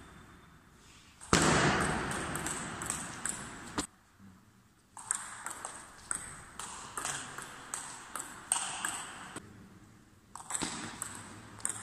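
A table tennis rally: sharp clicks of a celluloid/plastic ball striking the rubber bats and bouncing on the table, about two to three a second in runs with short pauses between points, echoing in a large hall. A louder burst of noise rises about a second in and fades over a couple of seconds.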